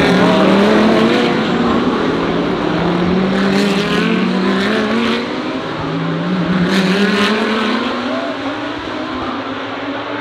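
GT3 race car engines accelerating hard, their pitch climbing in steps through upshifts, then falling back and climbing again about six seconds in.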